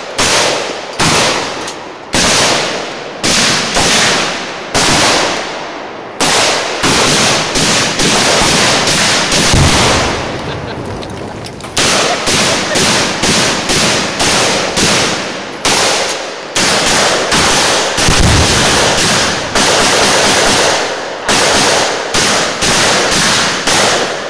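Several semi-automatic rifles firing at once in irregular, overlapping volleys, sometimes several shots a second, each shot with a short echoing tail. Twice, near the middle and about three-quarters through, a deeper boom stands out among the shots.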